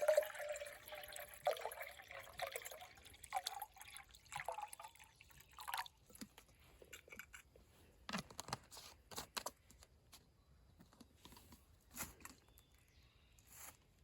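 Liquid being poured and sloshing for about the first six seconds, then a run of light clicks and knocks of handling.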